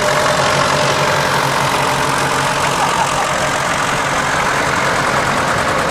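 Vintage tractor engines running steadily at slow parade speed: a grey Ferguson passing close, with red Porsche-Diesel tractors coming up behind.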